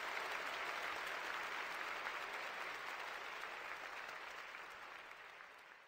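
Audience applauding steadily, slowly dying down toward the end.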